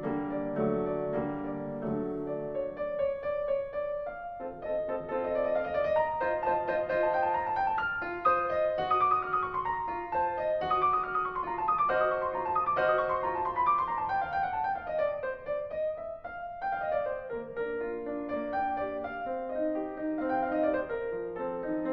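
Background piano music, with quick descending runs of notes in the middle.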